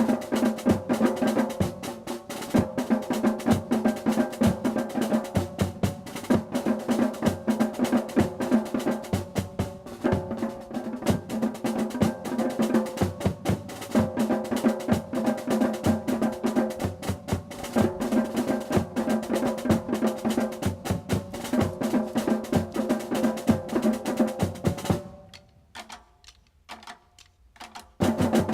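A drum line playing a fast, dense drum cadence of rapid strikes and rolls. It cuts off sharply a few seconds before the end, with a short burst of drumming again at the very end.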